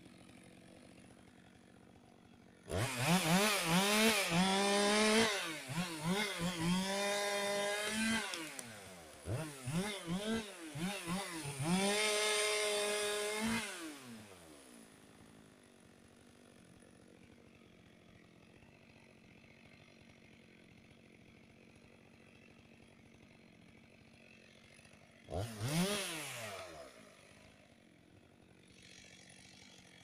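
Chainsaw revving up about three seconds in and cutting for roughly ten seconds, its engine speed dipping and recovering again and again under the load of the cut, then dropping back to idle. Near the end it gives one short rev that falls back to idle.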